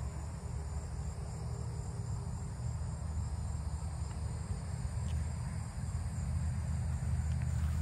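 A 2003 Mercedes-Benz SL500's V8 idling with a steady low rumble, with crickets chirring steadily in the background.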